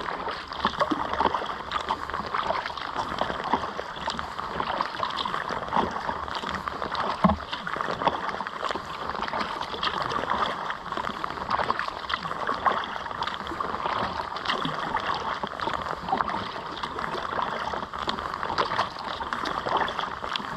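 Kayak paddling on open water: the paddle blades dip, splash and drip beside the hull while small wind-driven waves lap against it. A single sharper knock comes about seven seconds in.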